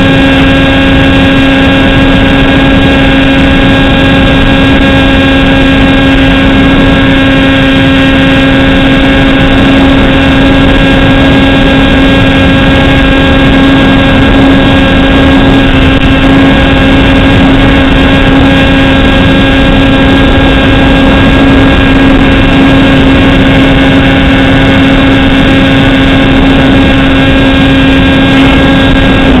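Model aircraft's motor and propeller running at a steady throttle, a constant loud drone with a fixed pitch, picked up close by the camera on board.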